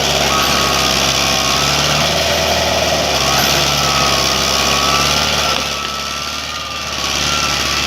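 Lamborghini tractor's diesel engine running steadily under work, with a high wavering whine coming and going over it; the sound dips briefly about six seconds in.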